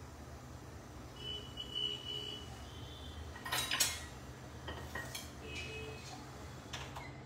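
Kitchen bowls and utensils clinking and knocking as they are handled on a counter: two sharp knocks about three and a half seconds in, lighter taps after, and a short high squeak earlier on.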